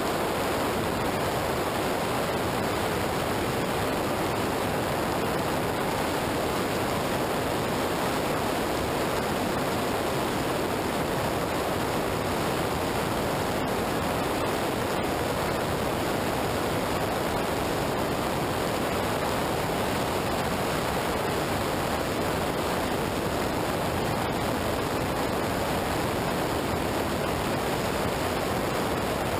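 Steady rushing wind and wet-road noise on an action camera's microphone at highway speed, with the hiss of tyres on a soaked road surface. No engine note stands out.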